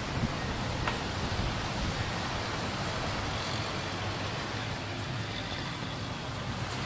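Steady, even rushing background noise, of the kind of distant road traffic, with a faint click about a second in.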